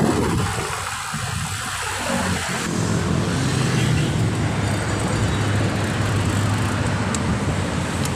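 Road traffic noise heard from a moving bicycle, with gusty wind noise on the microphone at first. From about three seconds in, a steady low engine drone from the vehicles alongside comes in.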